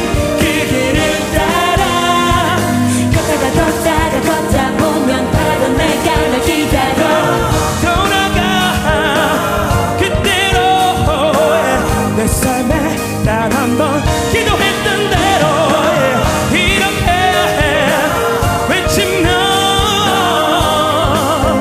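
Live pop ballad: a male voice singing over a string section, piano and drums.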